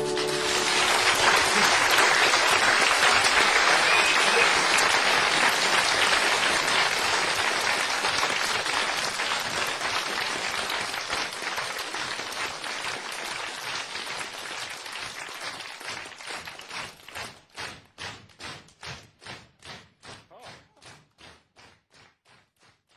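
Audience applause after a song ends: dense clapping that fades from about two-thirds of the way through, thinning into a few separate claps that die out.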